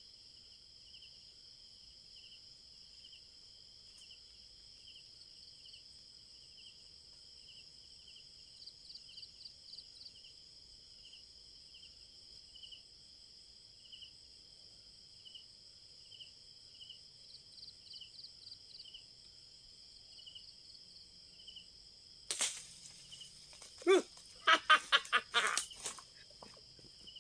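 A steady chirping chorus of crickets and other night insects, with short fast trills now and then. About 22 seconds in there is a sudden sharp crack, followed by a couple of seconds of loud, irregular rustling and knocking.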